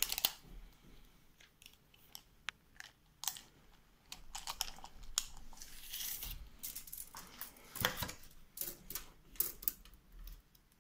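Handling noise from cardboard packaging and plastic wrap: rustling and crinkling with scattered clicks and knocks, busiest in the second half, as a tape measure is brought to the boiler.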